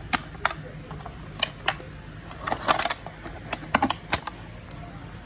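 Irregular plastic clicks and taps from hands handling a nitro RC buggy's polycarbonate body shell and chassis, with a busy cluster of clicks near the middle and several more near the end, over a faint steady hum.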